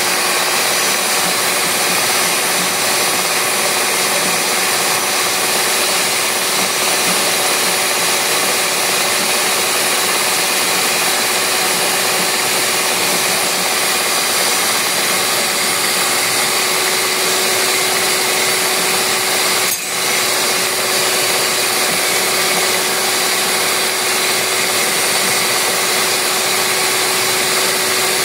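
Mondial Prática 400 W stand mixer running steadily, its beaters whisking a thin liquid batter of eggs, sugar, milk and oil. The sound dips briefly once, about twenty seconds in.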